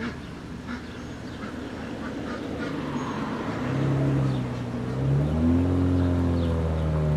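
Ducks quacking in short repeated calls; from about halfway a vehicle engine comes in low and steady, growing louder with slow rises in pitch.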